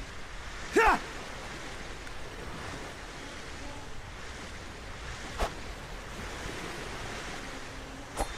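Steady rushing noise, with a short shout falling in pitch about a second in and two sharp clicks later on.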